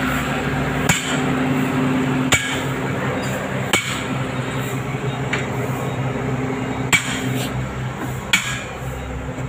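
Sharp hammer blows, six in all, about one and a half seconds apart, over the Cat 320D excavator's diesel engine running steadily.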